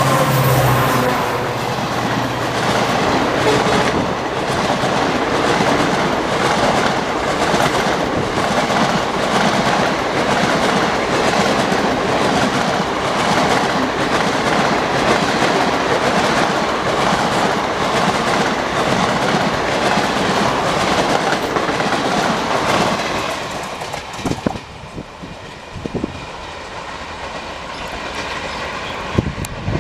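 Diesel-hauled express passenger train passing at speed: a fast, steady clatter of coach wheels over the rail joints. The locomotive horn fades out in the first second. About 24 seconds in, the noise drops off sharply as the end of the train goes by, leaving a fading rumble and a few knocks.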